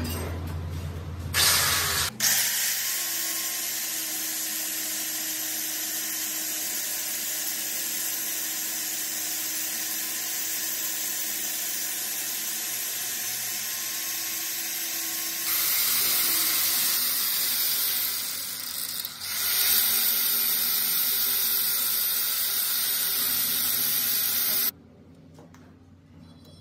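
Handheld angle grinder grinding the teeth of a steel pinion gear, a steady whine and hiss. About halfway through it gets louder and harsher, and it cuts off suddenly shortly before the end.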